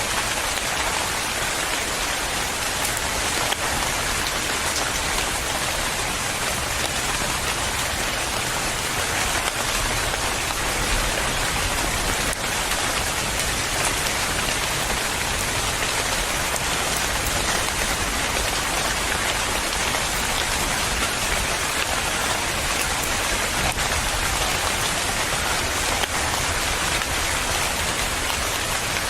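Steady heavy rain falling on a surface: an even hiss of many drops with fine scattered patters, unchanging throughout.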